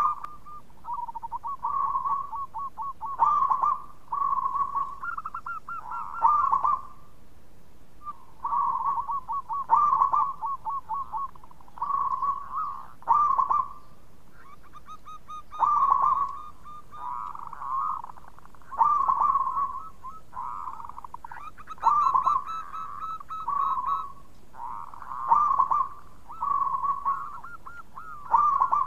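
Zebra dove (perkutut) cooing, a short phrase of quick repeated coos about every three seconds, around ten phrases in all.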